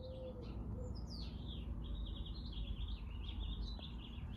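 Small birds chirping repeatedly, with quick downward-sweeping notes and trills, over a steady low background hum.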